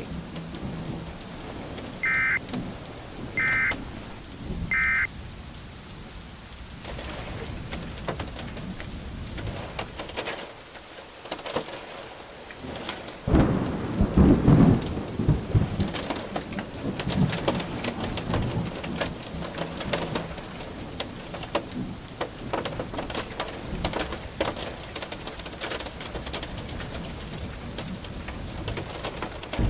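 Steady rain with rolling thunder; the biggest rumble comes about 13 seconds in. Near the start, three short beeping data bursts about a second and a half apart: the alert's end-of-message tones.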